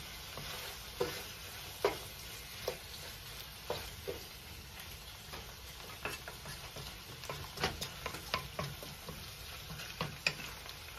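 Shrimp frying in a sauté pan with a steady sizzle, stirred with a wooden spoon that knocks and scrapes against the pan at irregular moments.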